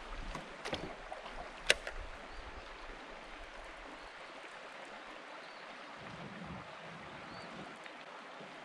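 Steady rush of flowing river water, with one short sharp click about two seconds in and a few fainter ticks before it.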